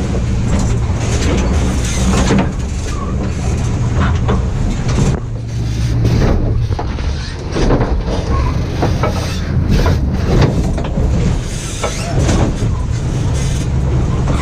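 Boat engine running steadily under way, a constant low hum, with repeated whooshing splashes as the hull runs through waves.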